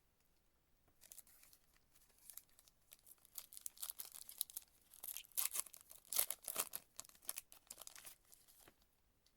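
A 2025 Donruss baseball card pack's wrapper being torn open and crinkled. The crackling is irregular and starts about a second in. It is densest in the middle and dies away near the end.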